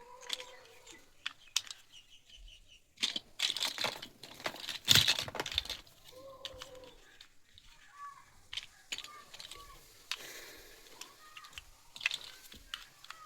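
Plastic toy blocks and their packaging being handled: crinkling with scattered sharp clicks, loudest from about three to six seconds in.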